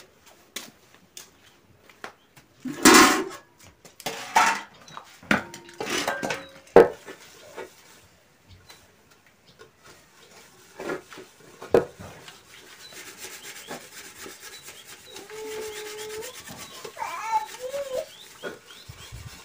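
Metal cooking pots being handled and scrubbed with steel wool in soapy water: scattered clanks and knocks, a few loud ones in the first seven seconds, then softer rubbing. Near the end come a few short calls that rise and fall.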